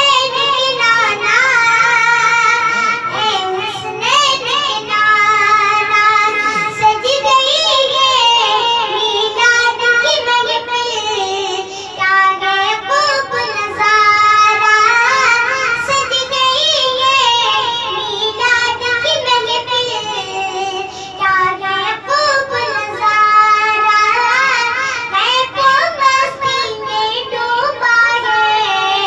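A young boy singing an Urdu naat (devotional song in praise of the Prophet) into a microphone, a high child's voice in long, wavering, ornamented phrases with brief breaths between them.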